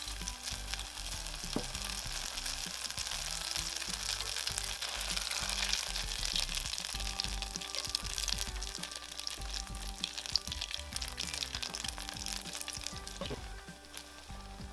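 Batter-coated white bread deep-frying in hot oil in a small pot: a steady sizzle full of fine crackles, easing off near the end.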